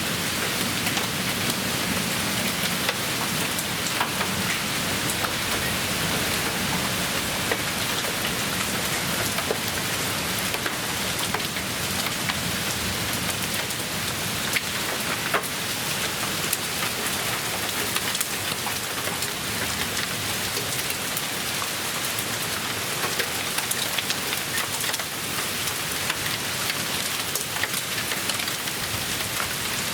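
Steady heavy rain from a severe storm pouring down, with many sharp, scattered impacts striking hard surfaces.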